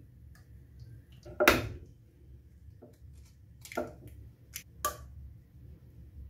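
Kitchen handling sounds: a few sharp clinks and knocks of glassware and small dishes against a stainless steel mixer bowl. The loudest comes about a second and a half in, followed by three smaller taps near the end.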